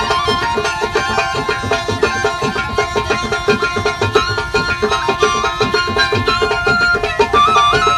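Background music: a fast, even drum rhythm over a held drone, with a melody that steps up and down in pitch, busier near the end.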